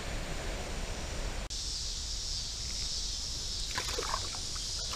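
Steady outdoor creek ambience, with a high steady hiss that starts after a brief dropout about a second and a half in. Near four seconds comes a short cluster of splashes and clicks as a fish strikes the lure at the surface.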